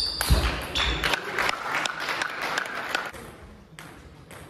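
Applause from a small crowd of spectators, clapping for about three seconds and then dying away, right after a table tennis ball is last struck.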